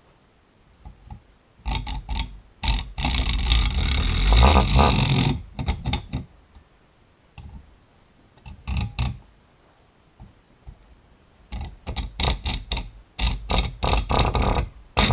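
Clatter and scraping of metal tools and parts being handled at a workbench. There is a dense spell of rasping and knocking a few seconds in, and a run of separate knocks near the end.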